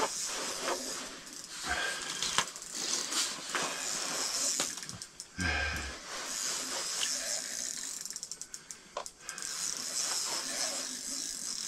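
Fishing reel clicking as a lake trout is played and reeled up through the ice, with a fast run of clicks about two-thirds of the way through. A steady high hiss runs underneath, and there is a dull thump about halfway.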